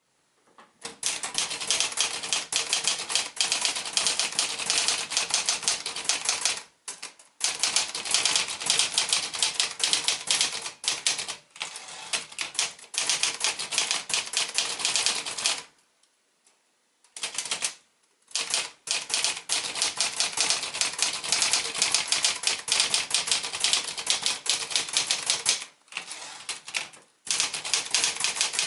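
Olivetti Lettera 35i manual typewriter typing in fast runs of keystrokes, the keys clacking one after another. The runs break off briefly about seven seconds in, for a longer pause at about the middle, and again near the end.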